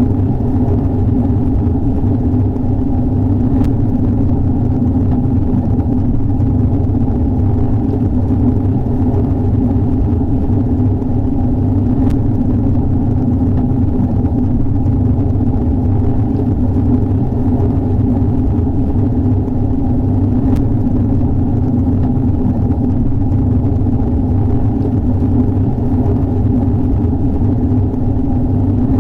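Heavy rain falling steadily, heard as a loud, muffled, low rushing rumble with a few faint ticks.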